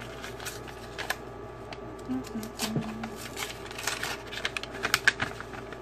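Paper and plastic sample packaging crinkling and rustling as it is handled, an irregular run of short crackles and taps.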